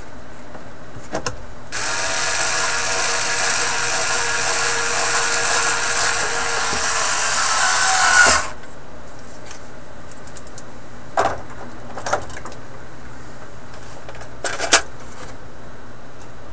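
A small electric power tool runs for about seven seconds, getting louder toward the end and then stopping suddenly. A few light clicks and knocks follow.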